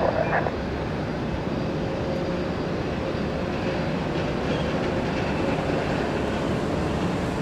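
Aircraft engines running, a steady rumble with a faint steady whine.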